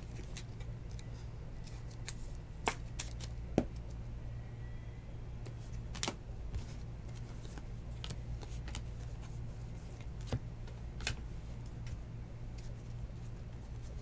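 Baseball trading cards being handled and flicked through one by one, giving scattered light clicks and snaps of card stock and plastic over a steady low hum.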